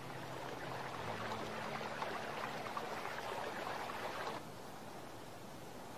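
Rushing river water, a steady hiss with a fine crackle, that cuts off sharply about four and a half seconds in, leaving a fainter hiss.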